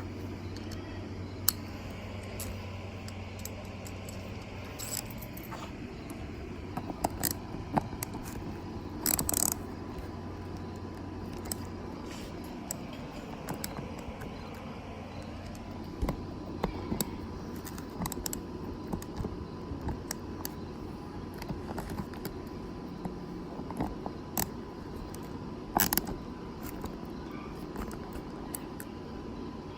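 Scattered clinks, taps and light scrapes of small metal parts and hand tools being handled, with a low steady hum during roughly the first twelve seconds.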